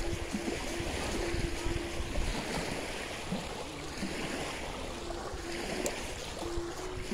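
Small river waves lapping at a sandy bank, with wind on the microphone and a faint broken hum.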